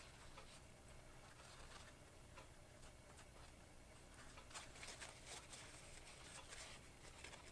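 Faint rustling and scratching of a paper towel as a small steel razor blade is wiped in it, busiest in the second half.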